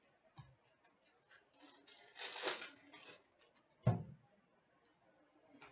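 Trading cards being handled and slid against one another, with a rustle lasting about a second from two seconds in, scattered small clicks, and a soft knock near four seconds.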